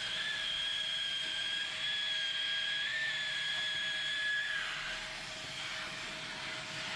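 Hot air welding machine running, its blower and hot air nozzle giving a steady hiss over a constant hum. A high whistle rides on the hiss and stops about four and a half seconds in.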